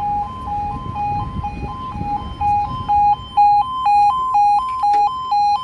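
UK level crossing audible warning (yodel alarm) sounding two alternating tones, low then high, about twice a second. It warns that the crossing is closing for an approaching train. It gets louder about halfway through.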